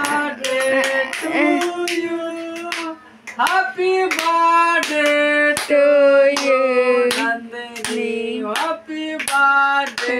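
Voices singing a song, with hands clapping steadily in time; the singing breaks off briefly about three seconds in.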